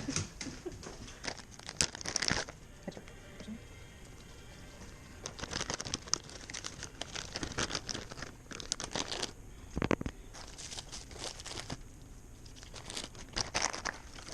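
Close crinkling and rustling in irregular bursts, with sharp clicks among them and quieter stretches between.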